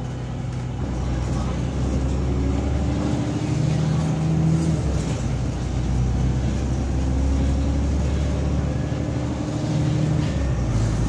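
VDL DB300 double-decker bus engine pulling hard, heard from inside the saloon. Its note rises as it revs up and drops sharply at an upshift about five seconds in, then climbs again and drops at another shift near the end.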